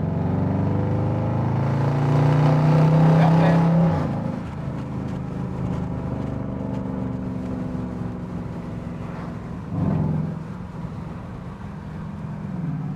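Car engine accelerating, its pitch and loudness rising for about four seconds before dropping sharply. It then runs steadily, with a short rev about ten seconds in.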